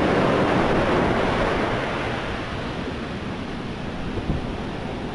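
Ocean surf breaking and washing up the beach, as a steady rush that is loudest for the first two seconds and then eases.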